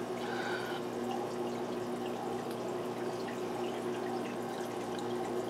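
Aquarium filter running: steady trickling and splashing of water, with a low constant hum beneath it.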